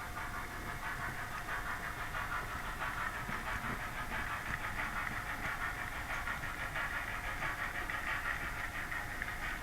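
Model train running along its track: a steady mechanical whirring hiss with fine, rapid ticking from the wheels and motor.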